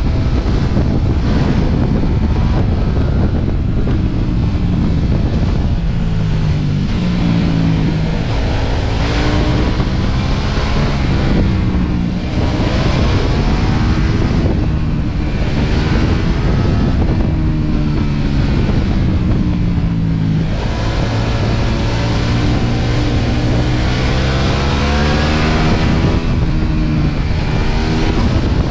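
Ducati Multistrada V4 S's V4 engine pulling on the move under heavy wind rush. Its note rises several times and drops back sharply each time, as the bike accelerates through the gears.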